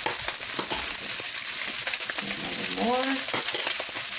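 Fried rice sizzling steadily in hot oil in a wok, with light clicks and scrapes from stirring.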